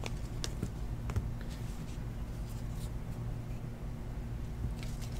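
Trading cards being handled and flipped through in the hands: faint scratching slides and light ticks over a steady low electrical hum.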